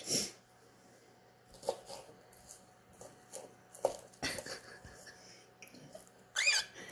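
Scattered light clicks and taps, then near the end a short warbling cockatiel chirp that rises and falls quickly.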